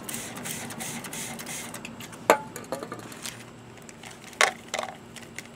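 WD-40 squirted from a non-aerosol squeeze bottle into a plastic cup as a hissing spray, followed by a few sharp clicks and taps as wrappers and O-rings are handled over the cup.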